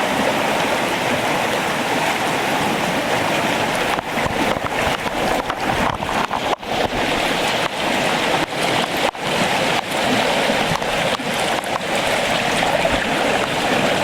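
Floodwater of a swollen creek rushing steadily past a cinder-block dam, loud and unbroken.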